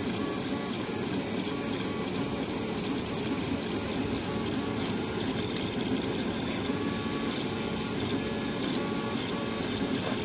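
Desktop FDM 3D printer running mid-print: its stepper motors whir as the print head moves, over the hum of the hotend cooling fan, a steady mechanical sound throughout.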